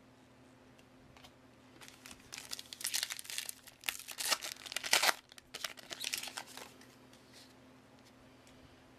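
Plastic wrapper of a 2015 Panini Contenders football card pack being torn open and crinkled by hand. The crackling starts about two seconds in, is loudest around the middle, and stops about seven seconds in.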